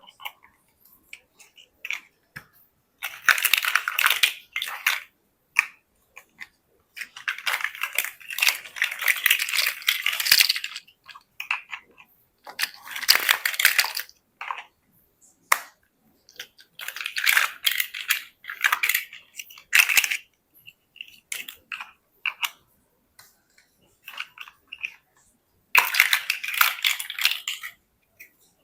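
Plastic building bricks clicking and clattering in several bursts of one to three seconds, with quiet gaps between, as loose bricks are handled and pressed together.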